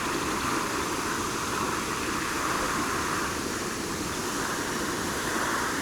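Steady hiss of lawn sprinklers spraying water, even and unbroken.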